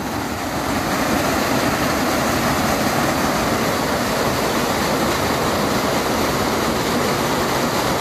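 Waterfall pouring heavily over rock at close range: a steady, loud rush of falling water.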